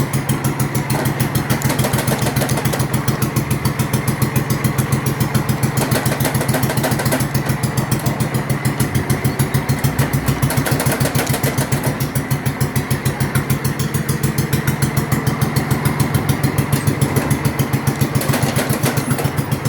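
Small engine of a mud mower (a modified riding lawn mower) running steadily with a fast, even pulsing beat, the machine under way with its transmission engaged.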